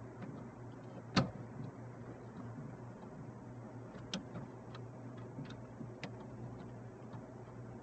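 Scattered small clicks and taps of hands and a small part working at the headlight switch behind a car dashboard, with one sharper click about a second in, over a steady low hum.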